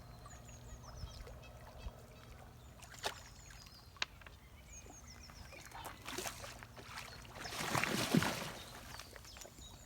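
Lakeside outdoor sound: small birds chirping with repeated short falling notes, two sharp knocks a second apart, and a louder rustling swish about eight seconds in.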